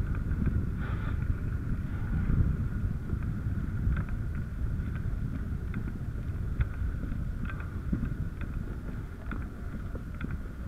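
Low rumbling wind noise on a camera microphone moving over pavement, with a faint steady high whine and scattered light clicks.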